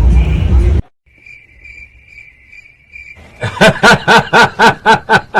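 Music cuts off abruptly, then a cricket chirps in a steady trill. From about three seconds in it is overtaken by a fast run of about nine loud, evenly spaced pitched calls.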